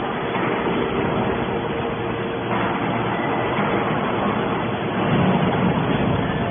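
Horizontal cast iron scrap baler running: a steady mechanical drone with a hum, growing harsher about two and a half seconds in and briefly louder near the end.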